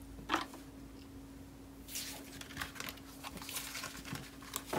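Tarot cards being gathered up and stacked by hand: a single tap early, then from about two seconds in a busy run of cards sliding and tapping against each other, over a faint steady hum.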